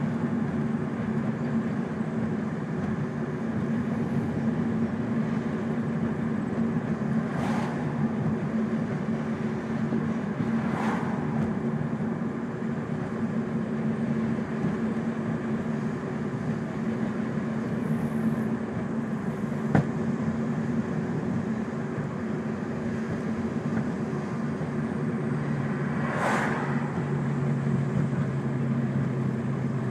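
2002 Ford Focus running with a steady engine and road drone, and a single sharp knock about twenty seconds in.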